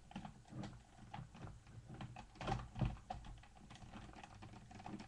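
Hard plastic parts of a Transformers Energon Omega Supreme toy clicking and knocking together as its two halves are worked into place by hand. The clicks come at an irregular pace, loudest a little past the middle.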